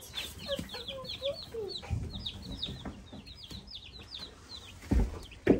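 A brood of baby chicks peeping continuously: many short, high peeps that slide downward, several overlapping at a time. A few low thumps break in, the loudest just before the end.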